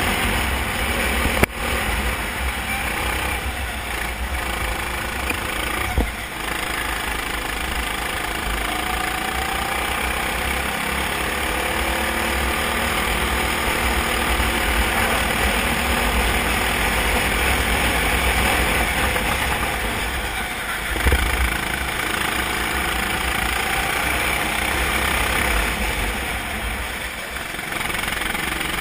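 Racing kart engine running at speed, heard through an onboard camera on the kart, with other karts' engines close by. A sharp knock comes about a second and a half in and another about six seconds in.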